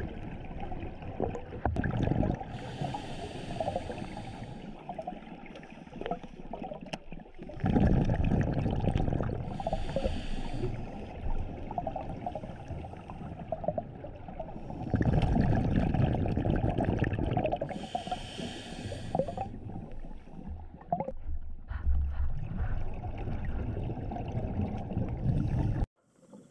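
Scuba diver breathing through a regulator underwater: a hiss with each inhale and a loud rush of exhaust bubbles with each exhale, a breath every seven or eight seconds. The sound cuts off suddenly near the end.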